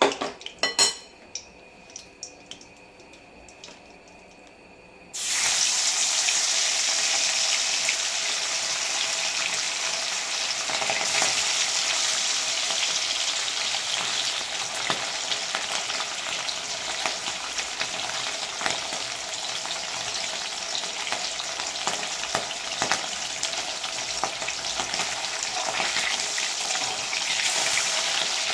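Hilsa fish steaks sizzling as they shallow-fry in hot oil in a kadai. The first few seconds are quieter with a few light clicks, then a loud, dense sizzle starts suddenly about five seconds in.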